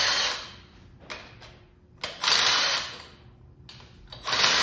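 Handheld power tool running bolts on an engine, in three short bursts of about a second each, about two seconds apart.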